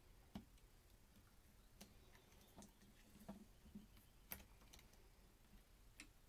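Near silence with a few faint, scattered clicks and taps as wires and small plastic parts inside an opened, unpowered router housing are handled by hand.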